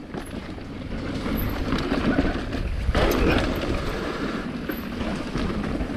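Mountain bike rolling fast down a rough dirt trail: tyre noise with an uneven rattle of the bike.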